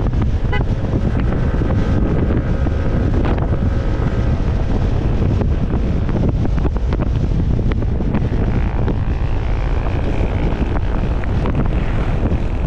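Steady wind rush on the microphone mixed with the running engine and tyres of a Yamaha motor scooter at highway speed on a concrete road.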